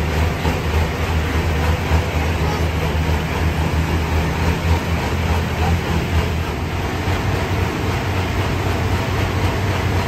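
Limited Pro Stock pulling tractor's turbocharged diesel engine idling steadily.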